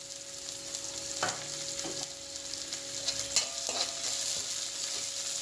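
Chopped onions, ginger and dried red chillies sizzling in hot oil in a steel kadai as they sauté for the tempering. A perforated steel ladle stirs, scraping and knocking against the pan several times.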